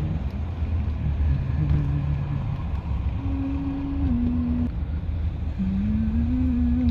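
A man humming a slow tune in long held notes, over the steady low rumble of a car's engine and road noise inside the cabin.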